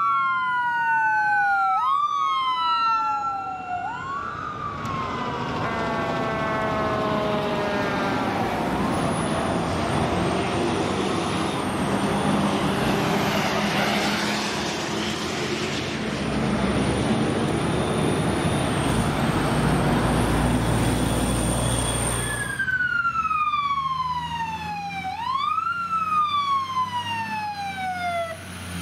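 Emergency-vehicle sirens. An ambulance's electronic siren wails down and up about every two seconds, then winds down. A steady rush of engine and road noise follows as a fire squad truck passes in traffic. Near the end another fire truck's siren takes over in a slower wail, falling, rising once and falling again.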